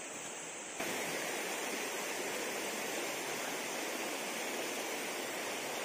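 Steady rush of flowing river water, a little louder from about a second in.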